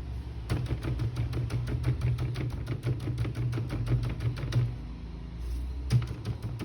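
A rapid run of small clicks or taps, roughly eight a second, that pauses for about a second near the end before starting again, over a low steady hum.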